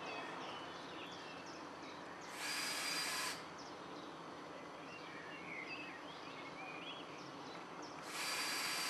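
A cordless drill runs in two bursts: a short one of about a second at about two and a half seconds in, and a longer one starting about eight seconds in. It is driving screws to fasten wooden shingle elements to the battens. Faint bird chirps come between the bursts.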